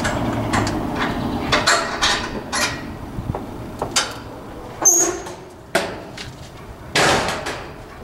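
Metal knocks and clanks from a utility trailer's mesh tailgate being unlatched and let down. A short high squeak comes about five seconds in, and a loud ringing clang about seven seconds in as the gate comes down.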